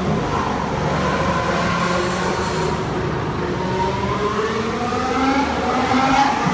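Formula 1 cars' 1.6-litre V6 turbo hybrid engines running, the engine note dipping and then climbing steadily as the cars come back onto the throttle and accelerate, with more than one car heard at once.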